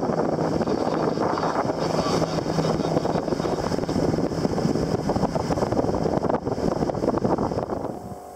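Sailboat's inboard auxiliary engine running steadily while motoring, under rushing wind noise on the microphone and water moving past the hull. The sound drops off about eight seconds in.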